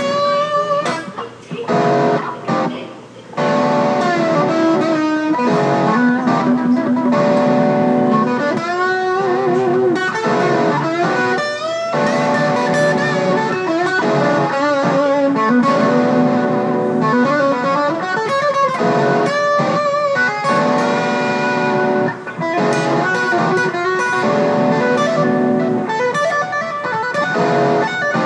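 Distorted electric guitar playing a lead lick in B minor, with half-step string bends that push notes up and release them, and wavering vibrato on held notes. There are a couple of brief pauses early on and one at about twenty-two seconds.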